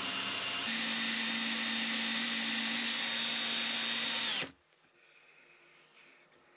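Cordless drill, used as a makeshift wood lathe, spinning a wooden dowel while sandpaper is held against it. The motor runs steadily, steps up in pitch just under a second in, then is released and winds down about four and a half seconds in.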